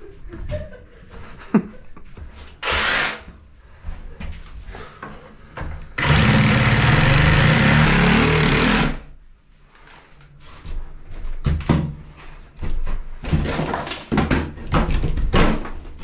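A power tool's motor runs steadily for about three seconds, starting about six seconds in. It is preceded and followed by short bursts of clatter and knocks from tools and parts being handled.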